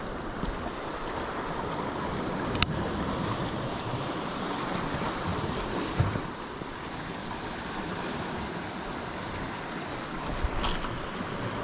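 Sea surf washing onto rocks, a steady rushing, with wind buffeting the microphone. A sharp click sounds about two and a half seconds in and another near the end.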